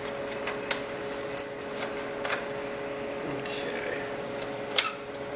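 Small clicks and taps of hands working among the wiring and tubing inside the base of a Leica CM1850 cryostat, with one sharper click near the end, over a steady background hum.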